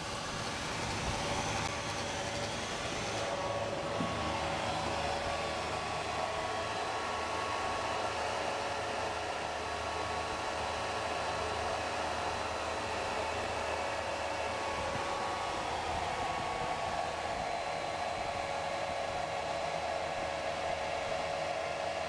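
FlyCool fully electric vapor-cycle air conditioner running in A/C mode: its brushless blower pushes a steady rush of air at about 300 CFM, with a steady whirring tone on top.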